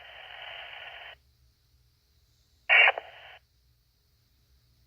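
Fire-department two-way radio heard through a scanner between transmissions: open-channel static hiss cuts off about a second in, then a short loud burst of noise near the three-second mark as a radio keys up briefly and drops, with silence around it.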